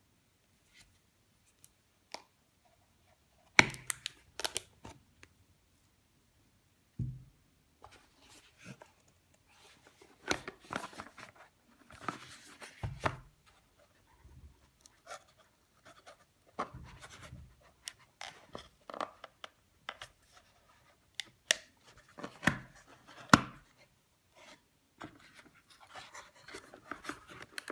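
Hands in cotton gloves handling cardboard and plastic packaging: scattered light knocks, taps and scrapes with quiet gaps between, and a few sharper knocks, the loudest about four seconds in.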